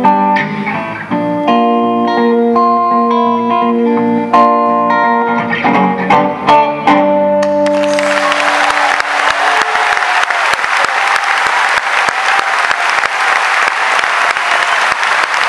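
A band plays the closing chords of a pop song on electric guitar, with a few sharp hits, and the last chord rings out. About halfway through, a large audience breaks into applause that carries on steadily.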